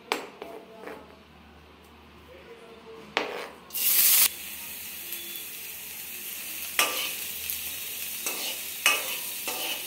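Chopped onion dropped into hot oil in a kadai, bursting into a loud sizzle about four seconds in and then frying with a steady sizzle. A steel ladle knocks and scrapes against the pan a few times as the onion is stirred.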